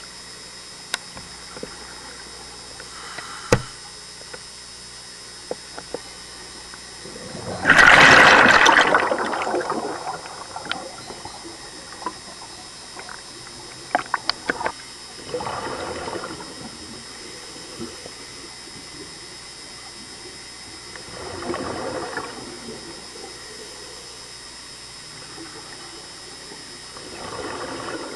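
Scuba regulator exhaust bubbles rushing out in bursts about every six seconds, the first and loudest about eight seconds in, over a steady underwater hiss with scattered sharp clicks.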